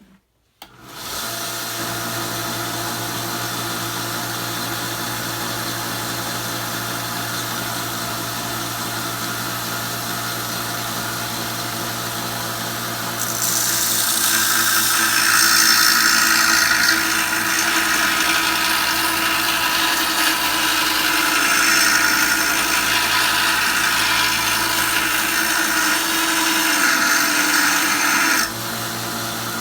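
Belt sander motor starts about a second in and runs with a steady hum; from the middle until just before the end the louder rasp of a steel draw knife blade being ground against the abrasive belt is laid over it, then it drops back to the motor alone.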